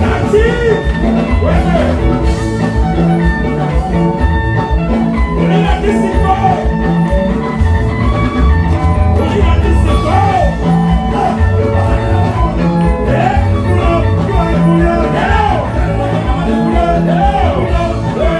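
Music with a steady bass beat under a melody line that repeatedly bends up and down in pitch.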